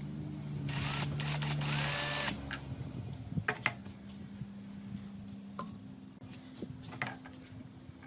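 Electric drill driving homemade sheet-metal shears: a loud noisy burst with a rising whine for about a second and a half near the start, then a steady low hum with scattered clicks.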